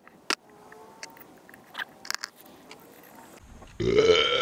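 Small clicks and taps of tools and parts being handled, then near the end a loud pitched whine lasting under a second from a 3/8-inch impact gun spinning up while the bolts on a pump pulley's bushing are run in.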